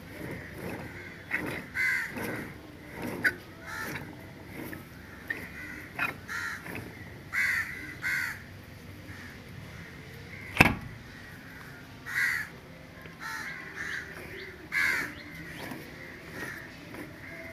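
Crows cawing repeatedly, short caws coming about once a second. About ten and a half seconds in, one sharp knock is louder than anything else.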